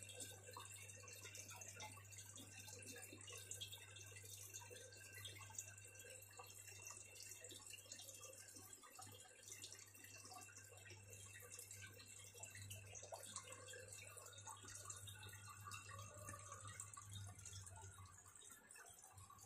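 Faint water trickling and dripping over a low steady hum, typical of an aquarium filter and pump running.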